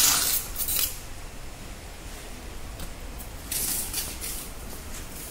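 Flame hissing as the old rubber bush is burned out of the rear dead axle's bush eye: a loud hiss at the start and another about three and a half seconds in, with a low steady background between.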